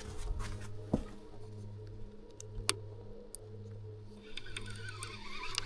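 Baitcasting reel being cranked against a hooked catfish: a low gear hum that comes and goes about once a second with each turn of the handle, with a few sharp clicks.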